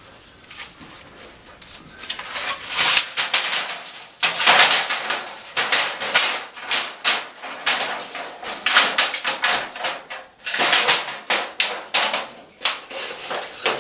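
Thin titanium foil stovepipe crinkling and crackling as gloved hands unroll it and roll it into a tube. The foil is old, wrinkled and already burned in. The crackles are soft at first and grow louder and denser about two seconds in, coming in irregular bunches.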